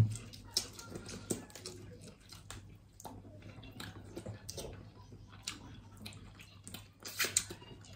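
Close-up eating sounds from boiled lobster: scattered wet lip smacks, finger licking and chewing, with a louder cluster of smacks about seven seconds in.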